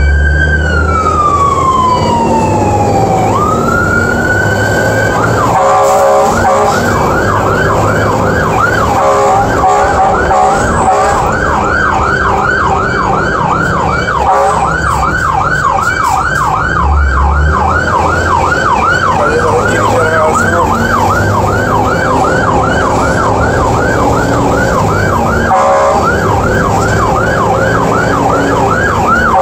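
Fire truck siren heard from inside the cab, loud: a slow rising and falling wail, then switching about five seconds in to a fast yelp of about three sweeps a second, broken off briefly near the end. The truck's engine runs steadily underneath.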